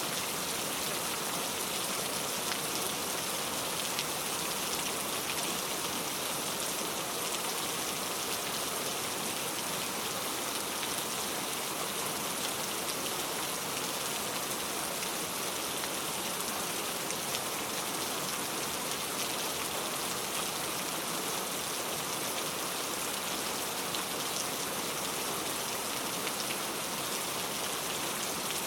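Heavy rain falling steadily, an even hiss of many drops with fine patters scattered through it.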